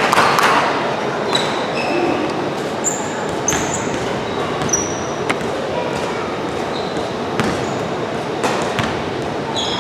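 Indoor basketball game: the ball bouncing on the court with scattered knocks, brief high squeaks and a steady murmur echoing in a large hall.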